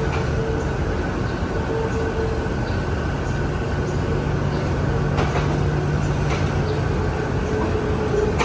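Passenger coaches of a departing diesel-hauled train rolling slowly past: a steady low rumble, with a few sharp clicks from the wheels and a faint whine that comes and goes.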